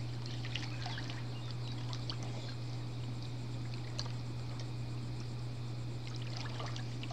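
Light splashing and lapping of pool water around a wading person and an inflatable baby float, with small drips and trickles scattered through. A steady low hum runs underneath.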